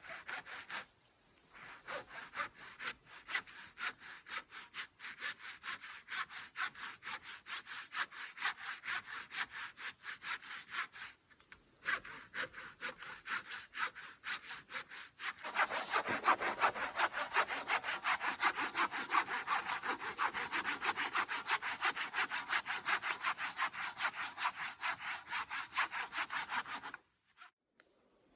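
Hand saw cutting through a thin fallen deadwood trunk in steady back-and-forth strokes, about two to three a second, with a few short pauses. About halfway through the strokes get louder, then they stop abruptly near the end.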